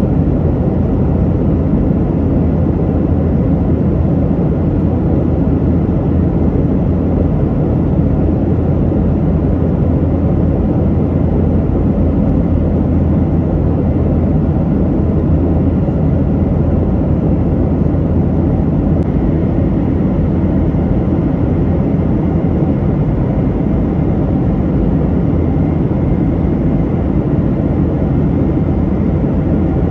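Steady cabin noise inside a Boeing 737-900 in flight: a low, even rushing drone of the engines and airflow that holds unchanged throughout.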